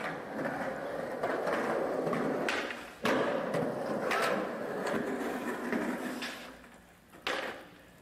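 Skateboard wheels rolling on concrete, broken by sharp clacks of the board popping and landing, the loudest about three seconds in. A last clatter comes near the end as the board hits the ground.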